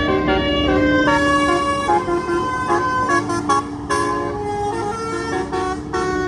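Bus's Basuri telolet multi-tone horn playing a melody of short notes that jump in pitch, several tones sounding together.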